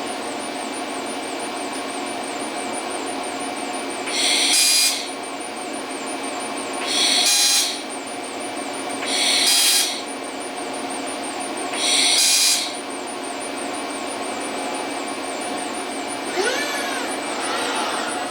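Fiber laser welding cell firing four short welds, each a loud hiss of under a second, about two and a half seconds apart, over the steady hum and whine of the machinery.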